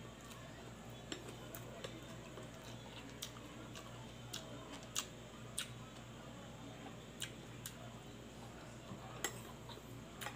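Metal spoon clinking and scraping on a plate, about a dozen sharp, irregular clicks.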